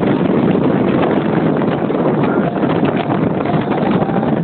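Wind buffeting the microphone over the steady rush of a ski boat running at speed while towing a slalom skier, engine and water noise blended into one even roar.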